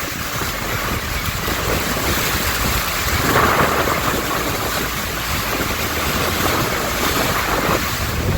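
Steady roar of Niagara Falls' falling water and spray, heard up close from the tour boat, with wind rumbling on the microphone.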